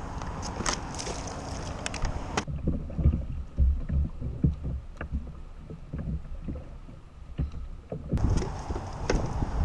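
Wind on the microphone and choppy water slapping a plastic fishing kayak, with scattered knocks and clicks. About two and a half seconds in the sound turns dull, to low thumps, and it opens up again near the end.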